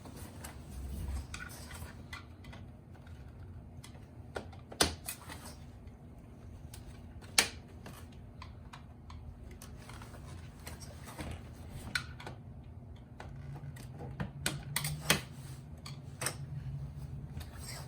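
Plastic clicks, taps and small rattles of an AC vent's tension clips being pried loose from a car navigation faceplate, a few sharp clicks standing out over a low steady hum.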